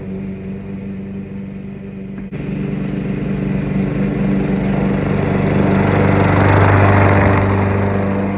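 Gasoline lawn mower engine running steadily. It changes abruptly a couple of seconds in, then grows louder to a peak near the end before easing off.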